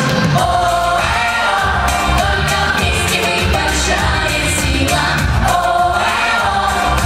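Vocal-instrumental ensemble pop song: a band playing with group singing.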